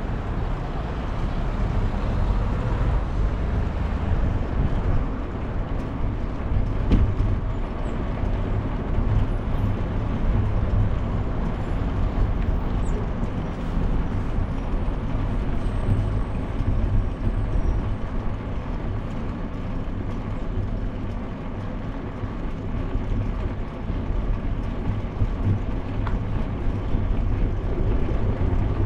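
Ride noise from a bicycle: wind buffeting the camera microphone over a steady low tyre rumble, rolling over brick pavers in the second half.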